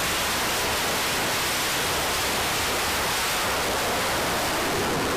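A steady, even hiss of noise spread across all pitches, holding one level throughout.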